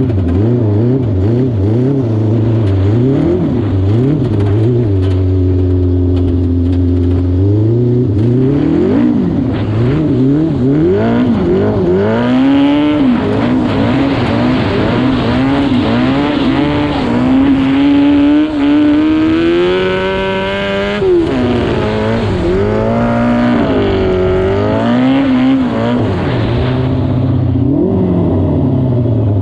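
Homemade lawn mower's 600cc Yamaha R6 inline-four motorcycle engine, idling steadily at first, then revving up and down again and again. It is held at high revs for several seconds in the middle, gives a few quick blips, and drops back to idle near the end.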